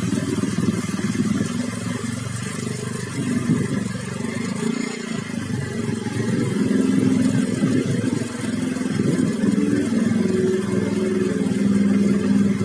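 Vehicle engine running steadily, its pitch rising and falling a little with the throttle.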